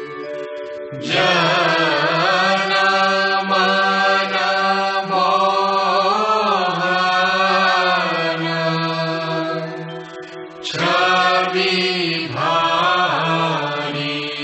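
Devotional aarti chanting: a sung melodic line with long held, bending notes over a steady low drone. The voice comes in about a second in and pauses briefly about ten seconds in before resuming.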